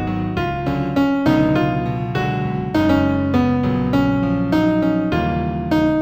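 Solo piano playing a gentle new-age instrumental in F major: a melody of struck notes over sustained chords, with the bass note shifting every second or two.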